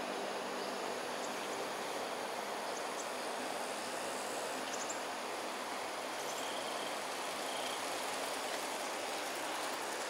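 Steady outdoor background hiss, even and unchanging, with a few faint, brief high chirps.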